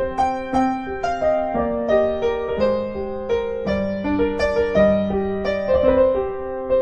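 Solo piano music: a festive holiday piano piece, a melody of struck notes over longer low notes.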